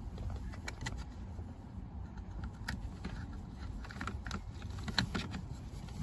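Scattered light plastic clicks and taps as a new turn-signal switch stalk is pushed into its socket on a Jeep Grand Cherokee's steering column, over a faint low background rumble.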